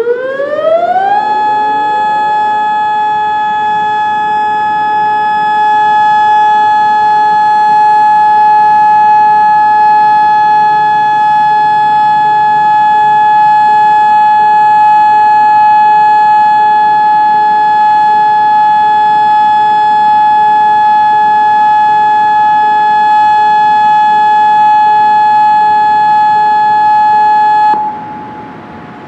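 Federal Signal DSA electronic tornado siren sounding a steady alert: the tone glides up in pitch over the first second, holds one loud steady tone, then cuts off abruptly near the end. Some of its speaker drivers are dying, and one of them gives a faint regular beeping under the tone.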